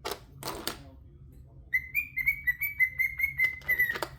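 Pet bird singing a quick run of repeated clear whistled notes, starting about halfway through. Two brief rustles come at the very start.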